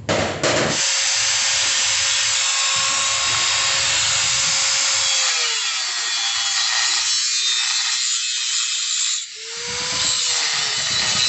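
Electric angle grinder cutting into a metal exhaust pipe, a loud harsh hiss over the motor's whine. The motor pitch sags as the disc bites, cuts out briefly near the end, then spins back up and resumes.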